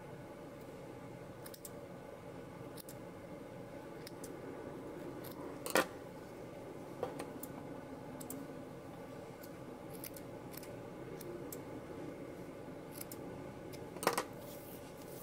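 Scissors snipping through loops of yarn: a few sharp snips, the loudest about six seconds in and near the end, with lighter clicks of the blades between.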